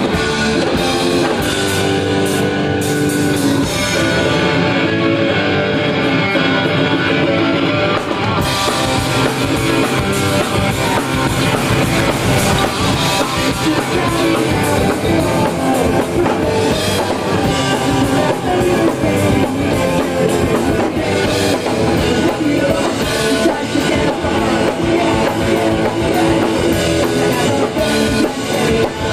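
Live rock band playing: electric guitars and a drum kit, loud and continuous, with the cymbals coming in and the sound growing fuller about eight seconds in.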